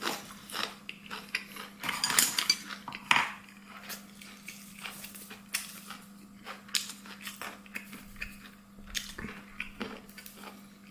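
Eating utensils tapping and clinking against dishes in a string of short, irregular clicks, the loudest about two to three seconds in, over a faint steady hum.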